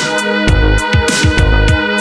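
Background music: sustained held tones over a beat of deep, pitch-dropping bass hits.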